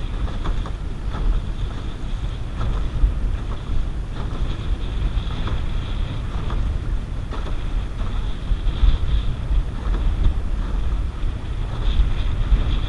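Strong wind buffeting the microphone, with choppy waves slapping and splashing against a canoe hull.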